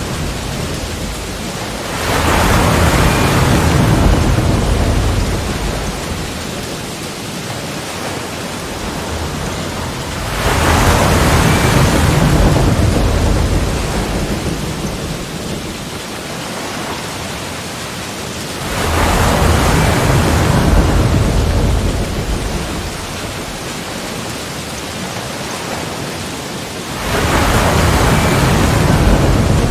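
Sea waves breaking against rocks: four surges about eight seconds apart, each starting suddenly and washing out over a few seconds, with a steady hiss of surf between them.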